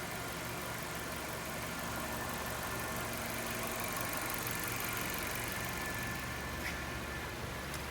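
Small car engine idling steadily, with a couple of faint clicks near the end.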